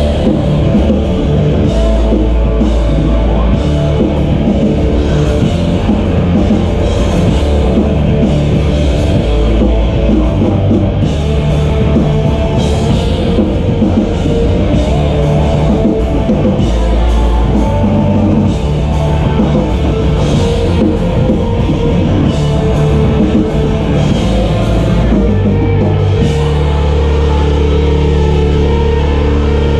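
Loud live heavy rock band playing guitar, bass and drum kit. About 26 seconds in the drums stop and a held low guitar and bass chord rings on.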